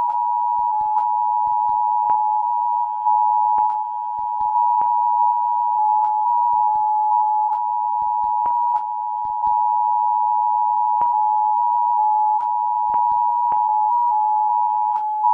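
Emergency Alert System attention signal: a steady two-tone alarm, two high tones close in pitch sounding together without a break, with faint clicks scattered through it.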